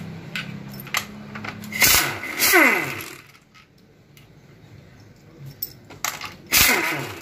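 Impact wrench running in two short bursts, about two seconds in and again near the end, spinning out the 10 mm valve-body bolts of an automatic transmission. Each burst winds down in falling pitch as the trigger is let go.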